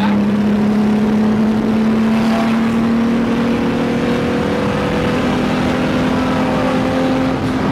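Turbocharged 3.2-litre V6 of an Acura NSX, heard from inside the cabin while driving: a steady engine note that slowly rises in pitch.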